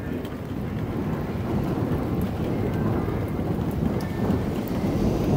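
Thunder rumbling, building over the first second or two and rolling on steadily, with heavy rain falling.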